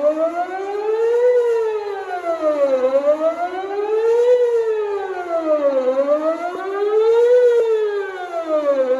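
Electronic outdoor tornado warning siren sounding a wail during a routine test, its pitch rising and falling smoothly about every three seconds.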